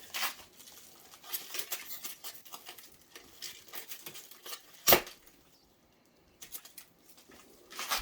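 Hands opening a taped package: short bursts of rustling, scraping and tearing of the packaging, with one sharp knock about five seconds in.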